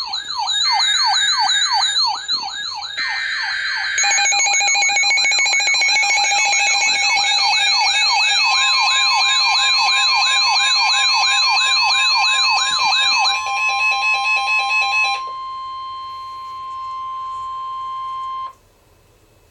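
Several electronic weather-alert alarms sounding at once: fast warbling siren tones layered over each other, with more joining about four seconds in. From about eight seconds in there is also a steady single tone near 1 kHz, the NOAA Weather Radio warning alarm tone. The warbling stops around 13 to 15 seconds, and the steady tone cuts off suddenly near the end.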